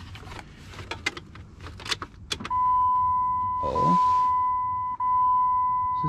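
Light clicks and rattles of a key and loose wiring being handled. About two and a half seconds in, a steady high electronic warning tone from the 2004 Jeep Grand Cherokee comes on as the ignition is switched on, with a short whooshing burst a second later.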